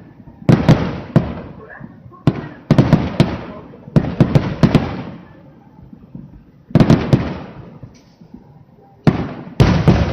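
Aerial firework shells bursting in a rapid-fire barrage: sharp booms in quick groups, each trailing off in a crackle. There are short lulls of a second or two in the middle, and the bursts come thick and fast again near the end.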